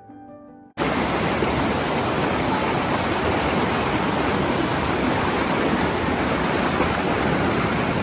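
Soft background music, cut off under a second in by the loud, steady rush of a mountain river's whitewater pouring over rock slabs.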